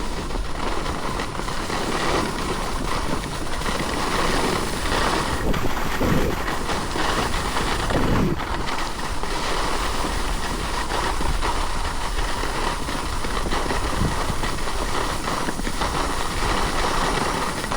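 Steady rushing noise of skis running fast over packed snow, with wind buffeting the microphone.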